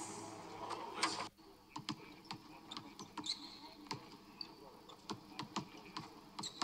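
Basketballs bouncing on a hardwood court, many separate knocks at an irregular pace from several balls in play, with a few short sneaker squeaks. A louder noisy stretch cuts off suddenly about a second in.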